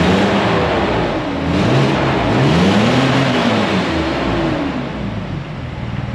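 Mercedes S600's 6.0-litre M120 V12 revved up and down three times in slow arcs, the biggest about three seconds in, then settling to a steady idle. The engine is down on power and is being tried with a substitute mass air flow sensor.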